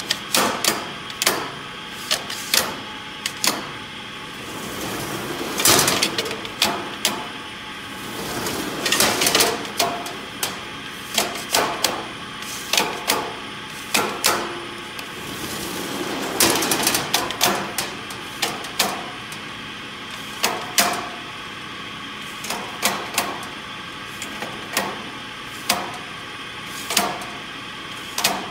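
Irregular metal clicks and knocks, with a few longer scraping swells, as a steel tension gauge is set down on a wide band-saw blade and slid along it.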